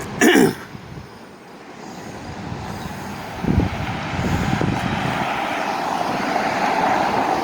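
Road traffic going by, with a vehicle drawing nearer and growing louder in the second half. A brief loud bump comes just after the start, and a low thump about halfway through.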